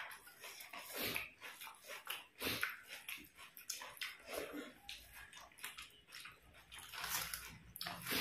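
Close-up wet eating sounds: irregular chewing and mouth smacks, with fingers squishing rice and chicken curry on the plates.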